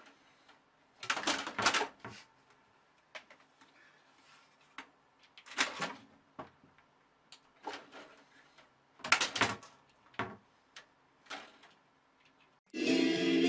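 A cat scrabbling at a computer case and curtain: short bursts of knocking, scratching and rustling every second or two, with quiet between. Music starts loudly near the end.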